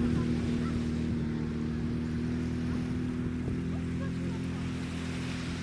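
A boat's engine running steadily at an even low pitch, with wind and water noise over it.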